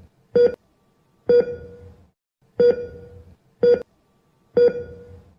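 Heart-monitor beep sound effect: five electronic beeps about a second apart, each a pitched tone with a low thud under it, some short and some trailing off slowly, like a patient monitor keeping time with the heartbeat.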